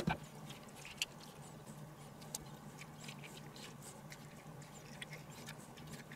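Faint scattered clicks and scrapes of a teaspoon hollowing out a tomato on a wooden cutting board, over a low steady hum. A short knock right at the start.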